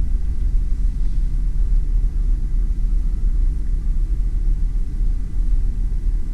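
Steady low rumble of a cruise ship's interior, the noise of its machinery and air handling, with a faint steady hum above it.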